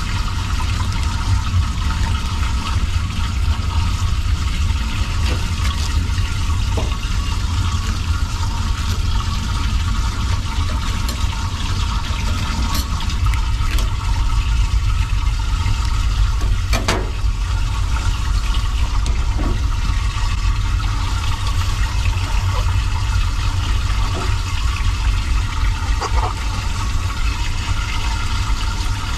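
Steady rush of running water, with a few faint clicks partway through.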